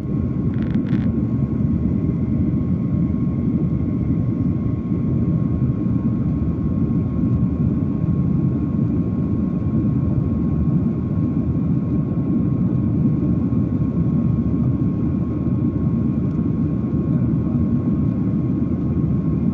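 Jet airliner cabin noise heard from a window seat: the steady, even roar of the engines and airflow, with a thin steady whine above it.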